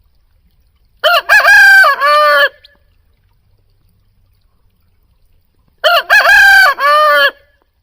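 Rooster crowing twice, each crow a long call of about a second and a half, the second near the end.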